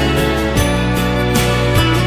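Slow instrumental music with steady held chords and no singing.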